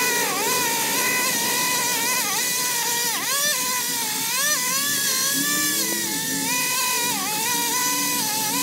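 Chainsaw running at high speed as it cuts tree branches, its pitch dropping and rising again several times as the chain bites and clears.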